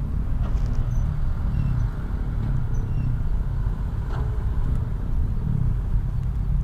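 Wind buffeting the action camera's microphone, a steady low rumble, with a few faint short high chirps over it.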